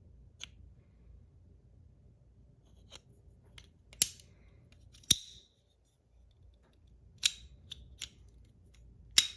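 PEI and aluminium Battle Master 1.1 fidget toy being worked by hand, giving a string of sharp clicks and snaps. About nine clicks come at uneven spacing, some faint and three loud: about four seconds in, about five seconds in, and near the end.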